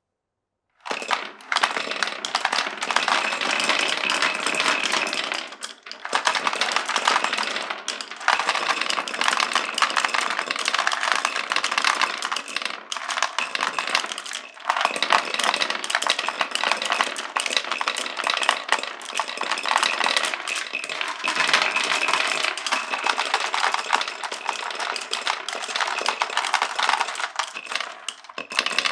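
Many marbles rolling and clattering down a marble-run track, a dense, continuous rattle of small clicks that starts about a second in, with a few brief lulls.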